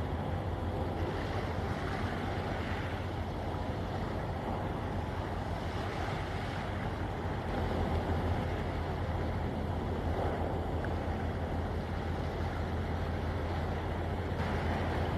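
Steady low engine drone of a departing ro-ro cargo ship under way, over an even hiss of wind, swelling slightly about halfway through.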